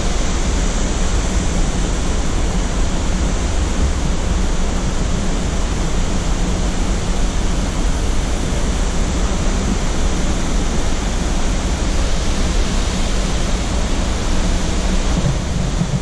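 Steady rush of falling and churning water from Upper Mesa Falls and the Henrys Fork rapids below it, loud and unbroken.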